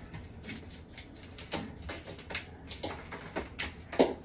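Scattered light clicks and knocks of kitchen items being handled, most likely the blender being fetched and picked up, with a louder knock about four seconds in.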